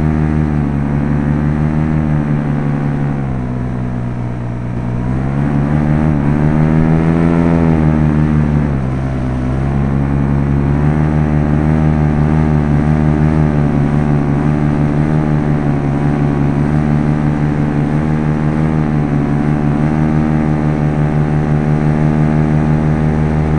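PAP Top 80 paramotor's two-stroke engine and propeller running at full power in flight. The pitch dips about three seconds in, climbs back up around six seconds, eases off briefly near nine seconds, then holds steady.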